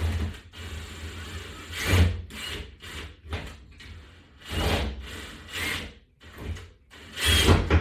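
Several rubbing scrapes, each with a dull thud, from a wall-mount section and its toggle-bolt screw being worked against a wall. The screw is being pulled back so the toggle's wings lock behind the wall.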